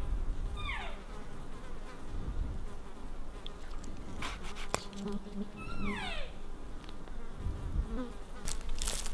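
Two cow-elk mew calls, each a whistle-like note sliding steeply down in pitch, one about half a second in and another about six seconds in. A fly buzzes near the microphone, with a few light clicks.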